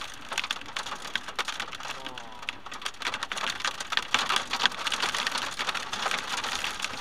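Storm-driven rain pelting a car's windshield and roof, heard from inside the cabin as a dense, uneven patter of sharp hits over a steady rush.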